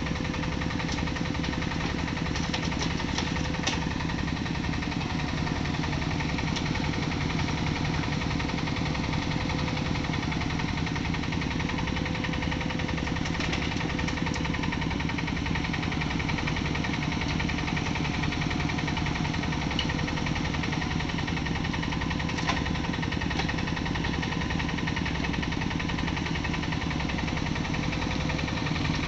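Diesel engines of a Yanmar SV08 mini excavator and a Yanmar C10R tracked dumper running steadily while the excavator digs and loads soil, with a few light knocks from the bucket and soil.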